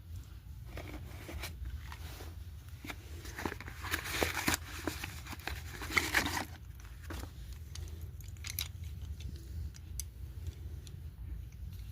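Slate pencils being bitten and chewed: crisp crunches and clicks, with a louder, denser run of crunching from about three and a half to six and a half seconds in.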